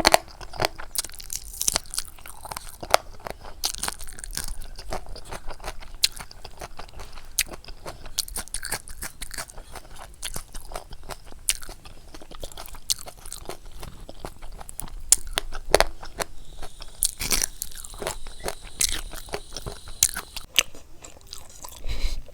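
Close-miked eating of pork curry and rice: irregular crunching, biting and wet chewing clicks, with no steady rhythm.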